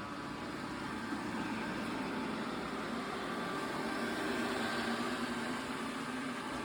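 Xiaomi Robot Vacuum S20 running with a steady whir and hum, growing a little louder past the middle and easing off near the end.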